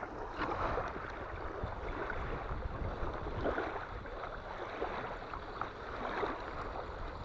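Small waves lapping and splashing at the shoreline in irregular surges, with strong wind rumbling on the microphone.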